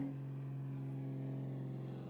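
A steady low hum from a running motor, holding one pitch throughout.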